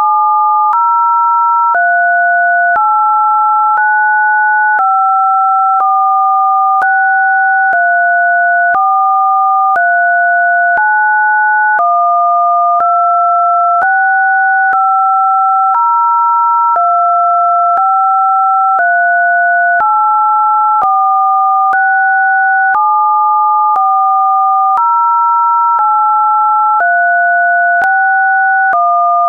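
Synthetic test tones: two steady pure tones sounding together, switching to a new pair about once a second with a click at each change and no gaps. The pairs fall on telephone touch-tone (DTMF) keypad frequencies.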